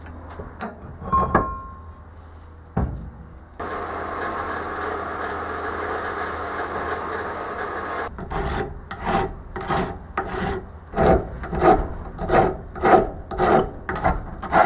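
A few light handling knocks, then a bandsaw cutting steadily, heard from a distance. About eight seconds in it cuts off and a hand file rasps across a sand-cast metal lathe headstock in quick even strokes, about two a second.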